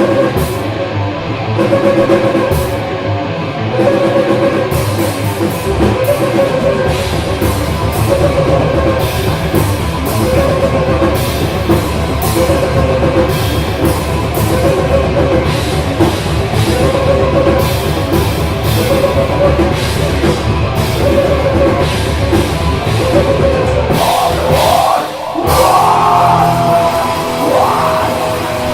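Rock band playing live: electric guitar repeats a riff about every one and a half seconds over a drum kit. About 25 seconds in the band drops out for a moment, then the guitar plays sliding, bending notes.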